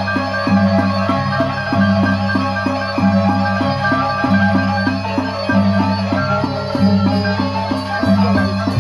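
Sasak gendang beleq ensemble from Lombok playing traditional gamelan. Large barrel drums, gongs and clashing cymbals keep a fast, steady beat of about four strokes a second over ringing metallic tones and a low pulse that switches between two pitches about once a second.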